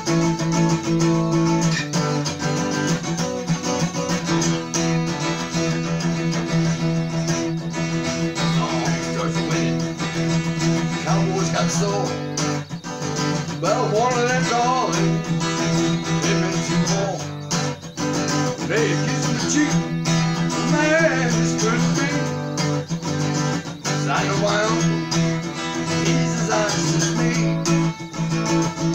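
Acoustic guitar strummed and picked steadily, with a man's voice singing along at times from about thirteen seconds in.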